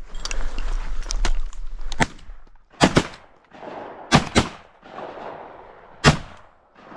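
Shotgun volley at passing ducks: five shots, two nearly together about three seconds in, another quick pair about a second later, and a last shot near the end, after a couple of seconds of rushing noise.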